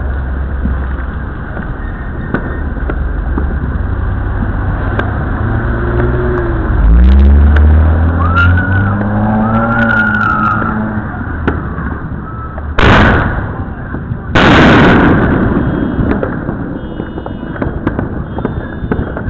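Two loud fireworks bangs about a second and a half apart, over a steady background rumble.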